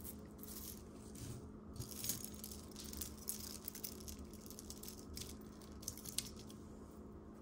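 Metal costume jewelry clinking and jangling faintly as hands rummage through a pile of chains, bracelets and cufflinks on a towel, with many small light clicks.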